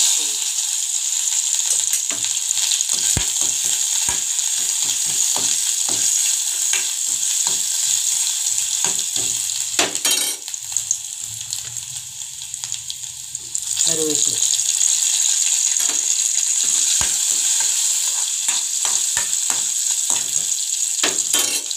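Whole spices for tempering (cinnamon stick, fennel seeds, chopped ginger) sizzling in hot oil in a metal kadai, with scrapes and taps of stirring. The sizzle dips about ten seconds in and flares up again a few seconds later as more goes into the pan.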